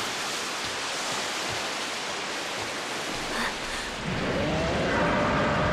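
Heavy rain pouring down, a steady hiss; about four seconds in, a deeper rumble and a few held tones join it.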